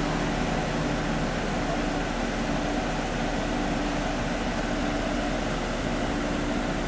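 Steady low hum and noise of idling cars.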